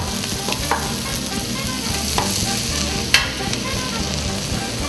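Noodles, seafood and vegetables sizzling and frying on a steel teppanyaki griddle. A few sharp knocks of wooden seasoning shakers against the griddle cut through the sizzle, the loudest about three seconds in.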